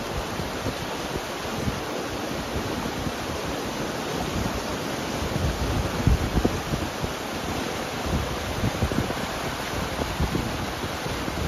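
Fast, shallow mountain river rushing steadily over rocks and whitewater, with wind gusting on the microphone in low rumbles, the strongest about halfway through.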